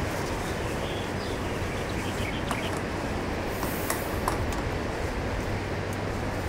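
Steady wind and sea-surf noise at a rocky coast, with a few faint high ticks and short chirps in the first half.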